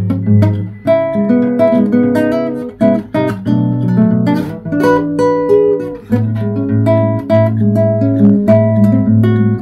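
Background music led by plucked and strummed acoustic guitar over a steady bass line.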